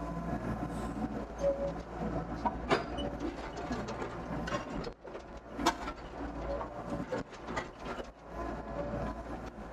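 Doosan DX55 mini excavator's diesel engine running steadily while the machine works, with a scatter of knocks and rattles. Two sharp knocks, about a third of the way in and just past halfway, are the loudest.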